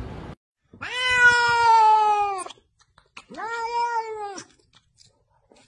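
Domestic cat meowing twice: a long drawn-out meow of about two seconds that falls in pitch at its end, then after a short pause a shorter meow.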